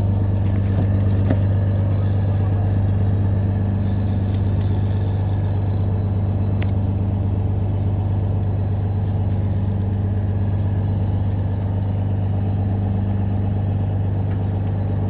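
Fishing boat's engine running steadily, a constant low hum with no change in pitch.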